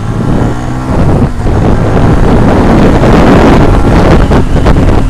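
Motorcycle engine pulling away, its pitch rising in the first second. A loud rush of wind on the microphone then builds with speed and covers most of the engine, peaking about three to four seconds in.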